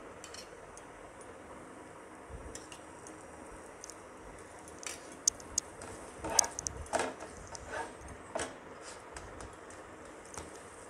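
A flat steel spatula clicking and scraping against an iron tawa as parathas are lifted and turned, a cluster of sharp knocks about halfway through. Under it, a steady faint sizzle of freshly added oil on the hot griddle.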